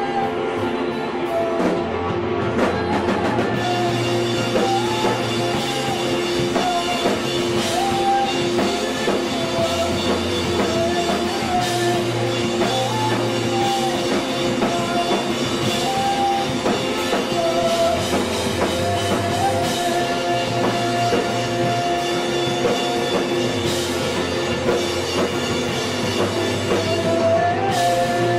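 Live rock band playing electric guitars and a drum kit, with a guitar melody that rises and falls over and over.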